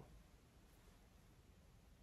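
Near silence: faint room tone between phrases of speech.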